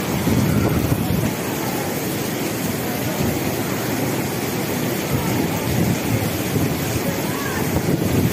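Heavy rain and strong gusty wind, the wind buffeting the microphone, over the surf of a rough sea.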